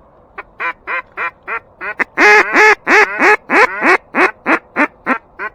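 Mallard-style duck call blown in a long run of about seventeen quacks, building to the loudest, longest notes about two seconds in and then tapering to shorter, quieter ones.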